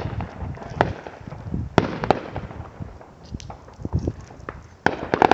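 Fireworks and firecrackers going off at irregular moments, a string of sharp bangs and pops with a cluster of rapid cracks near the end.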